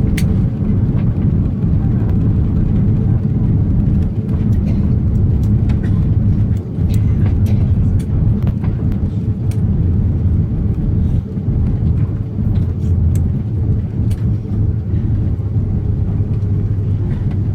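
Airbus airliner cabin noise around landing: a loud, steady low rumble from the engines and airframe, with frequent small rattling clicks from the cabin fittings.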